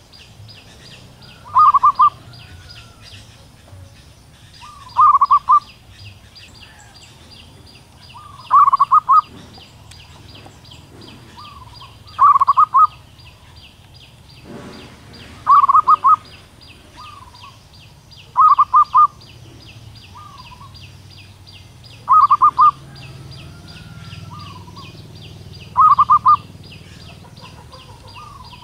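Female zebra dove (perkutut) calling: eight short cooing bursts, each a quick run of notes, spaced about three and a half seconds apart. It is a female's call to attract a male.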